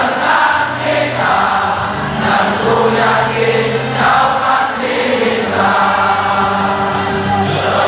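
Stadium crowd of football supporters singing a chant together, a slow melody of held notes sung in one voice by many people.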